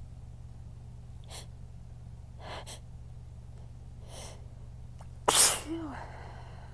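A person's strong sneeze from a sneezing fit: a few short gasping inhales build up over several seconds, then one sudden loud sneeze about five seconds in, trailing off in a brief falling voice. A steady low hum runs underneath.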